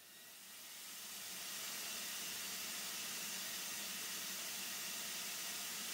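Side channel blower just switched on, spinning up at fixed mains speed: a broad rushing air hiss builds over about two seconds and then holds steady as the outlet pressure climbs toward the safety valve's 170 mbar setting.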